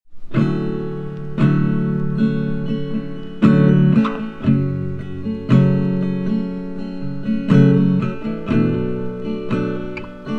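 Acoustic guitar strumming chords in a steady rhythm, with strong strums about once a second and lighter ones between.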